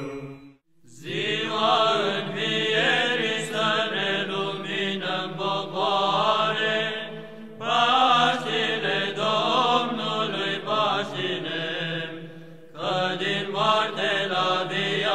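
Background music: Orthodox church chant, voices chanting in long phrases. It starts about a second in and pauses briefly twice.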